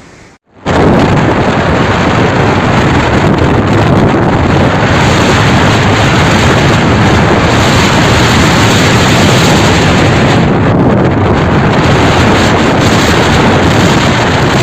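Loud, steady rushing noise of strong wind buffeting the microphone, starting abruptly under a second in.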